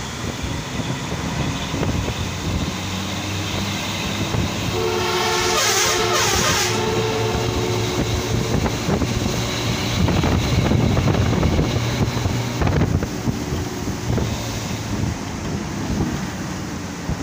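Bus engine running and road noise, heard from inside the moving bus. A vehicle horn sounds for about three seconds, starting around five seconds in.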